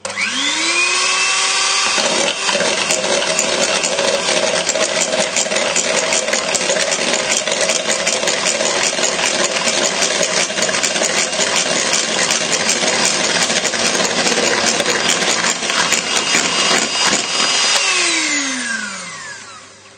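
Electric hand mixer whisking the egg mixture while hot milk is poured in, tempering the eggs for custard. The motor spins up at the start, then runs steadily with a fast ticking over it, and winds down near the end.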